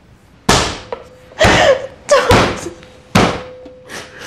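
A man crying hard in about five sharp, loud sobbing gasps, each breaking off within half a second.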